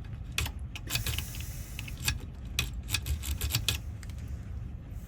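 Light metallic clicks and jingles of a key being handled and worked in a Camaro wafer door lock cylinder whose corroded wafers have just been cleaned, over a steady low hum. The clicking thins out about four seconds in.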